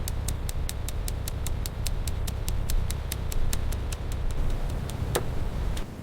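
Rapid, even clicking, about five clicks a second, over a steady low rumble, with a brief falling sweep about five seconds in and the rumble dropping away near the end.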